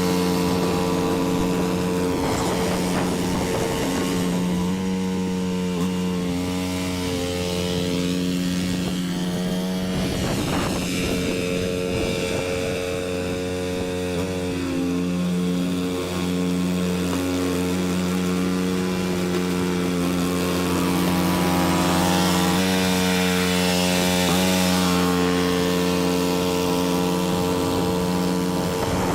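Cub Cadet 2X 30-inch two-stage snow blower's 357 cc EFI engine running steadily while clearing snow, its pitch shifting slightly a few times.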